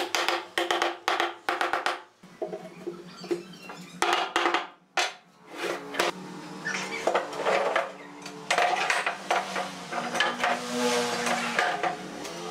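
Wooden mallet knocking on pine boards in a quick run of taps over the first two seconds, then scattered wooden knocks and clatter, all over steady background music.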